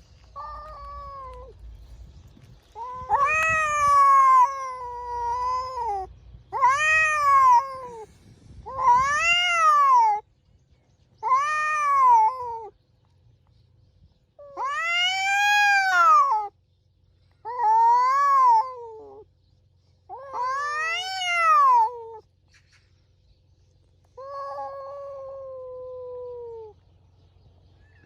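Cats yowling in a territorial standoff: about ten long, drawn-out calls, each rising and then falling in pitch, with short pauses between. The last call, near the end, is lower and flatter.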